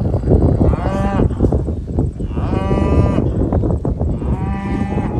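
Black Angus cattle mooing: three calls, each rising and then falling in pitch, a little under two seconds apart.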